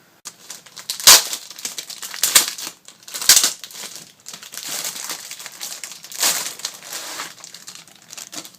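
Plastic packaging crinkling and rustling as it is handled, with three sharper loud crackles in the first few seconds, then softer rustling that fades near the end.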